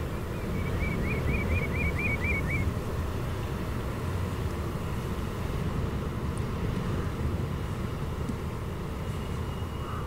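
Steady low outdoor rumble of estuary ambience. A bird calls a quick run of about nine short notes in the first three seconds, each note rising and falling in pitch.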